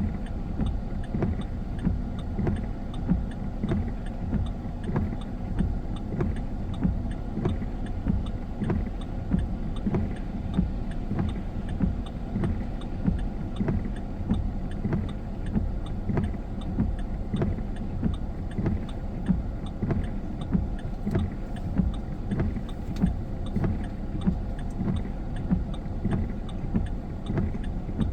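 Car driving in the rain, heard from inside: a steady low road and engine rumble with a regular thump about once a second.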